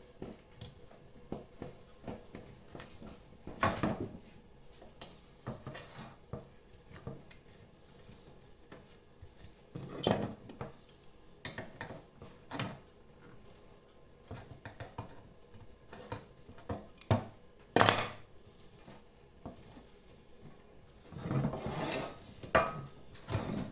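Pliers working a soft aluminium window frame to press it over a rubber seal: scattered metallic clicks, clinks and short scrapes, with a few louder clinks and a stretch of scraping near the end.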